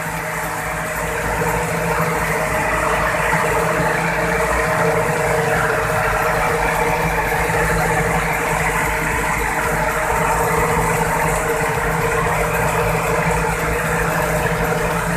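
A fishing boat's engine running steadily at a constant pitch.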